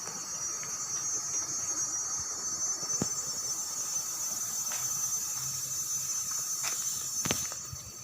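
Steady high-pitched chorus of insects chirring, with a few short knocks; the loudest knock comes about seven seconds in.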